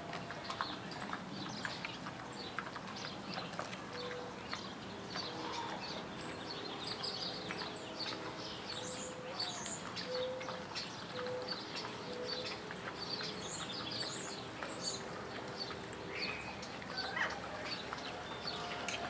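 Red river hogs rooting and snuffling with their snouts through dry straw and dirt: a steady scatter of small crunches and rustles. Small birds chirp high-pitched throughout.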